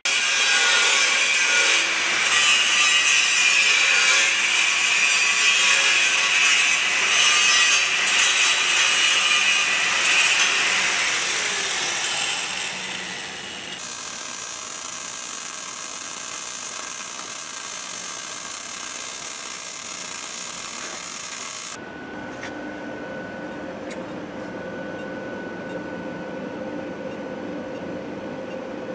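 Metal fabrication shop noise: a loud rasping, sawing-like power-tool noise for about the first half. It then drops abruptly to a quieter steady hum with faint steady tones, and changes abruptly again about two-thirds in.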